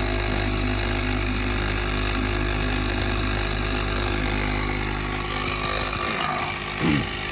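Jeep Grand Cherokee air suspension compressor running steadily on the bench, a motor hum that lessens about six seconds in. The compressor runs but builds almost no pressure.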